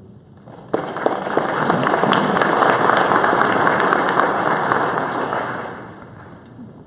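Audience applauding: the clapping starts sharply just under a second in, stays full for several seconds and dies away near the end.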